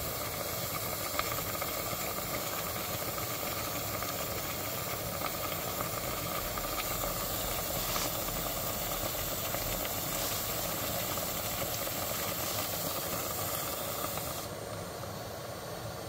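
Vacuum cleaner running steadily, its hose sealed to the engine to pull a vacuum so the oil stays in the sump while the oil level sensor is removed. Near the end its hiss turns duller and a little quieter.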